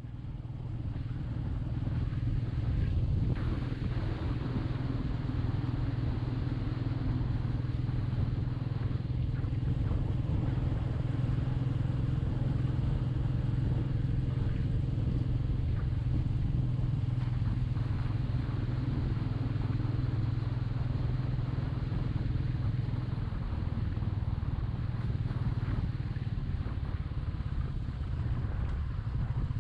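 Royal Enfield Meteor 350's single-cylinder engine running at a steady pace under way, a constant engine hum with road and air noise.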